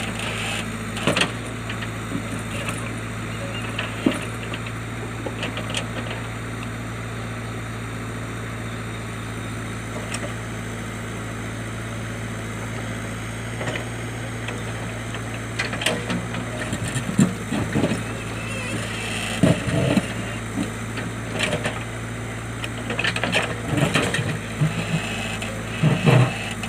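JCB backhoe loader's diesel engine running steadily, with scattered sharp knocks and clatters from digging among rocks, more frequent in the second half.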